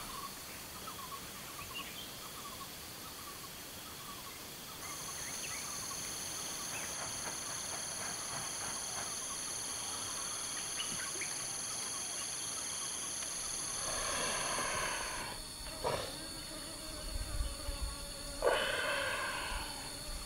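Ambient animal-like soundscape: several steady high-pitched tones and many scattered short chirps over a faint hiss. Two louder noisy swells and a sharp click come in near the end.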